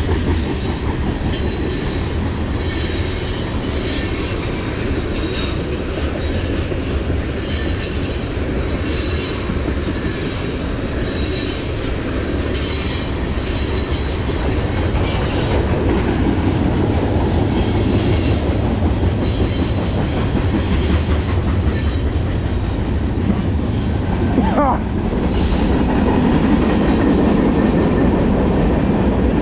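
BNSF manifest freight train's cars rolling past at close range, a steady rumble of steel wheels on rail with regular clicking over the rail joints. About 24 seconds in there is a brief squeal that falls in pitch, and the rumble then grows a little louder.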